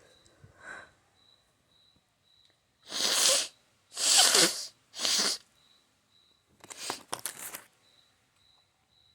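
A person sneezing three times in a row, loud and about a second apart, followed a couple of seconds later by a quieter, fluttering burst of nasal noise.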